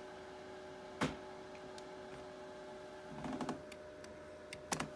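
A few sharp clicks and soft handling rustles over a faint steady hum: one click about a second in, rustling a little after three seconds, and a short cluster of clicks near the end.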